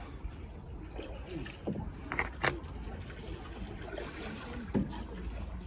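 Footsteps on the wooden planks of a footbridge, with two sharp knocks a little after two seconds in, over a low outdoor rumble and faint distant voices.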